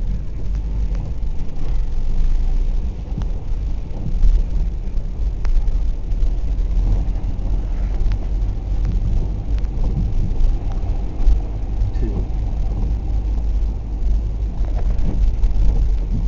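Wind buffeting the camera microphone outdoors at a flooded seaside wharf. It makes a loud, unsteady low rumble that swells and dips.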